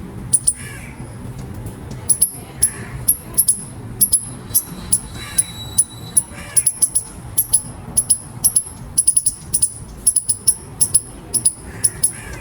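Eastern gray squirrel squeaking: many short, very high-pitched squeaks that come in irregular quick runs, several a second.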